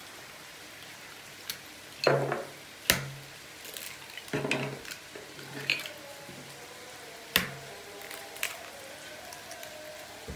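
Eggs being cracked against the rim of a ceramic bowl, with the shells dropped into a small dish: a series of sharp taps and clicks spaced a second or more apart, with the loudest at about three seconds in and at about seven seconds.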